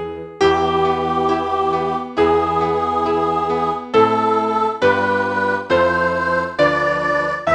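Electronic keyboard with an organ-like sound playing sustained, steady chords that change every second or two: a synthesized practice track for the soprano part of a mixed-choir piece.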